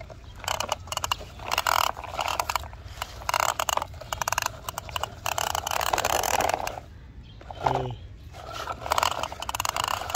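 Plastic toy truck being handled, with dense rapid clicking and rattling that pauses briefly near the two-thirds mark.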